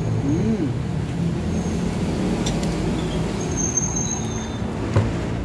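Steady low hum of an engine running, like a vehicle idling nearby, with a couple of light clicks from a plastic sauce bottle being handled and capped.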